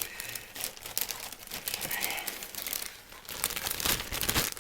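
Plastic bags of model-kit parts being handled and pulled open: irregular crinkling and crackling of thin plastic film, with some tearing of sticky tape.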